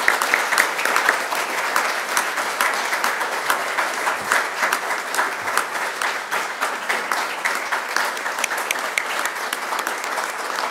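Audience applause: many people clapping together at a steady pace.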